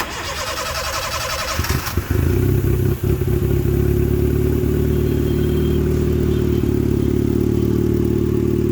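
A diesel car engine cranking on the starter motor, catching after about two seconds, then running at a steady idle. It is a car that cranks long before starting, which the mechanic puts down to faulty injector nozzles.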